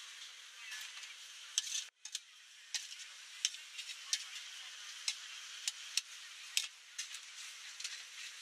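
Beef lok lak sizzling in a hot wok, with a steady frying hiss. A metal ladle stirs and scrapes against the pan, giving sharp clinks every half second or so. The sound cuts out for an instant about two seconds in.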